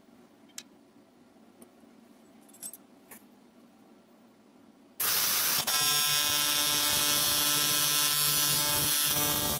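TIG welding arc on an aluminium intake pipe, welding on a sensor fitting: a steady buzz that starts suddenly about five seconds in and runs for about four and a half seconds, with a brief dip just after it strikes. Before the arc, only a few light handling clicks.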